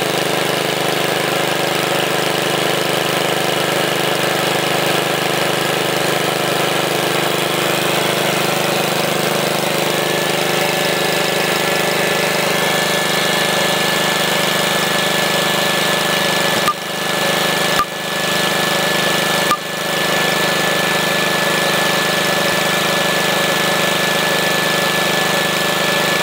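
Wisconsin ABS single-cylinder air-cooled engine running steadily, driving a generator. A thin steady high whine joins the engine sound about ten seconds in.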